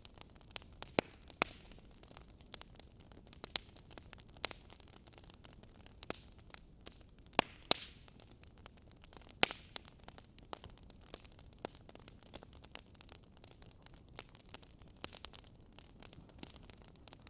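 Wood fire crackling in a fireplace: irregular sharp pops and snaps, a few louder ones, over a faint steady hiss.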